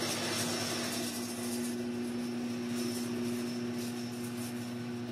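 Overhead garage door opener motor running with a steady hum, then cutting off suddenly near the end. The opener has been disconnected from the door, so it runs without lifting it.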